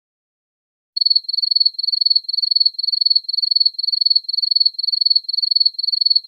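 Cricket chirping sound effect: a high-pitched chirp repeating steadily about twice a second, starting about a second in after silence.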